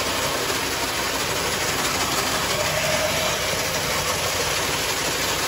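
Steady running of harvest machinery at a hopper of canola seed: an engine running with a dense, even noise over it.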